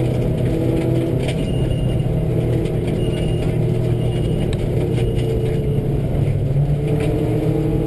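Subaru rally car's flat-four engine running hard at speed on a gravel stage, heard from inside the cabin, with two runs playing together, one in each channel. Occasional sharp ticks of gravel striking the car.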